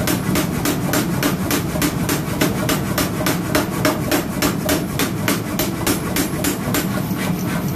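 Power hammer rapidly and steadily pounding red-hot leaf-spring iron on the anvil, about four to five blows a second over the machine's running drone, forging a meat-cleaver blank.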